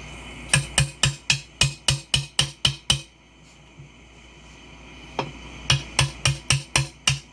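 Hammer blows on a tool wedged against the tire bead, driving it in to break the bead off the rim: a quick run of about ten sharp, ringing strikes at roughly four a second, a pause of about two seconds, then another run starting.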